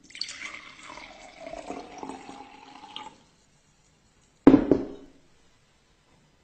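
Water poured from a glass carafe into a stemmed glass, splashing, with a tone that rises in pitch as the glass fills; the pour stops after about three seconds. About a second later comes one loud sharp tap on the glass, which rings briefly.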